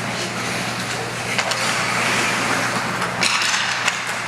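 Ice hockey play in an indoor rink: skates scraping the ice and a few sharp clacks of sticks and puck, over the steady hum of the arena.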